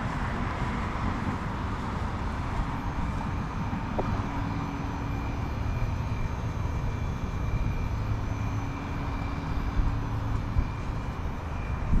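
Several Day & Night heat pump outdoor units running in cooling mode: a steady whoosh of condenser fans with a low hum, and a faint steady whine that comes in a few seconds in.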